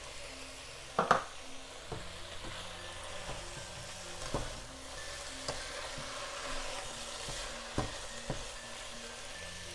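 Vegetables sizzling in a pan while being stirred, a steady frying hiss with a few sharp knocks of the spoon against the pan, the loudest about a second in.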